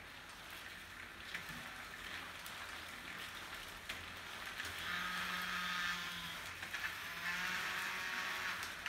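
Rear wheel of an e-bike with a NuVinci N360 hub spinning after being turned by hand, a fast fine ticking hiss, during a calibration reset of the Harmony shifter. About five seconds in, and again about seven seconds in, a whirring hum joins for a second or so.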